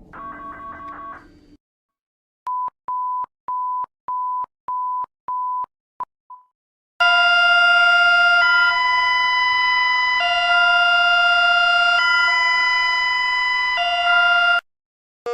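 Emergency alert attention tones. First a short chiming pattern, then about seven short, even beeps at one pitch, about two a second. Then a loud, steady chord of several alarm tones that alternates between two chords every couple of seconds and cuts off abruptly near the end.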